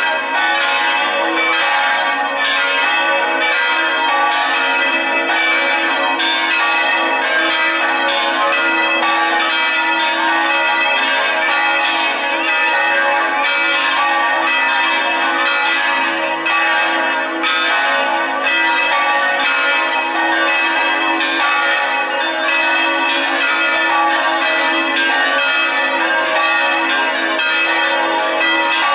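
Church tower bells ringing a festive peal, several bells struck in quick, overlapping succession with a continuous ringing.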